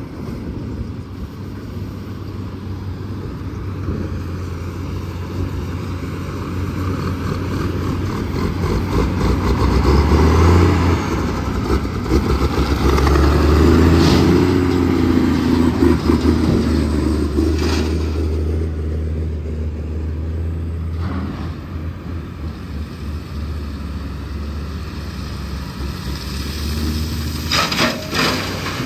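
Heavy diesel truck engine running steadily; its drone swells to a peak around the middle and then eases back. A few sharp knocks or rattles break through, with a short cluster near the end.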